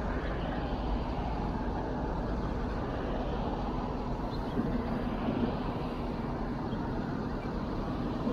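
Steady road and street-traffic noise heard while riding a fat-tire e-bike through city streets. The noise is heavy in the low end, with no sharp sounds.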